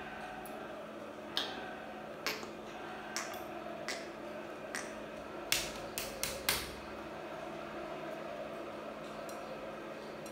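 A thin flexible strip being handled and flexed, giving a string of sharp clicks and snaps, with a quick cluster of the loudest ones about five to six and a half seconds in, then stopping. A steady low hum runs underneath.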